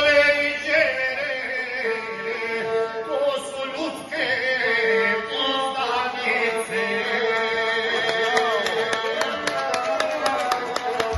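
A man singing a wedding toast (zdravica) in the chanted epic style to his own gusle, the single-string bowed folk fiddle, whose steady line runs under his voice.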